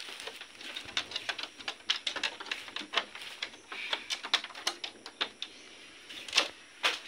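Irregular clicks and scratches of a cat's claws catching on a bamboo slat lattice as it paws at it.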